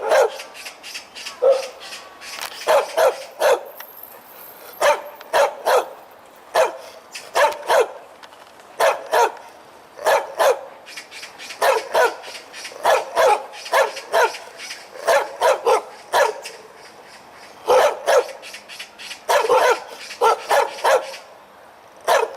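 A dog barking loudly and repeatedly, in quick runs of two to four barks with short pauses between.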